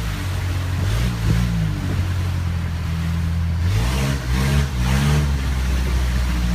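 Boat engine running steadily, its pitch wavering up and down a few times about four seconds in.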